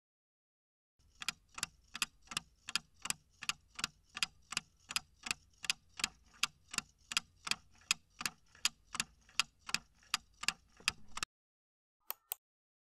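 Countdown-timer sound effect: a clock ticking evenly, about three ticks a second for about ten seconds, stopping suddenly; two short sharp clicks follow about a second later.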